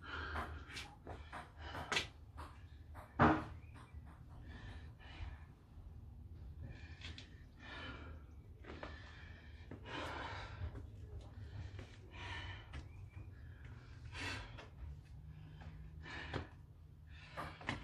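A person breathing hard in short breaths every second or two, recovering between sets of burpees, with a single sharp thud about three seconds in.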